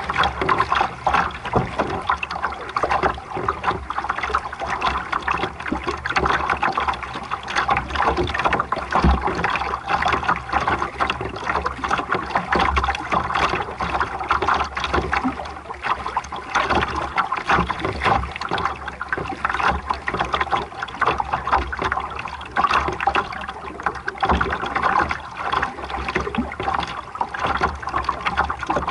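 Water rushing and splashing along a sailing boat's hull as it moves under sail. It is a steady, churning wash with constant small splashes and no engine.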